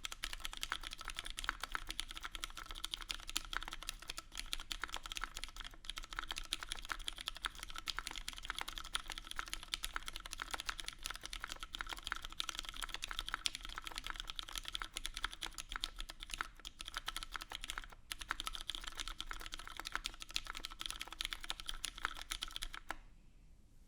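Fast, continuous typing on a mechanical keyboard with lubed Cherry MX Brown tactile switches, fitted with TX films, in an aluminum Porpoise case with a full aluminum plate and GMK doubleshot ABS keycaps: a dense stream of keystroke clacks that stops about a second before the end.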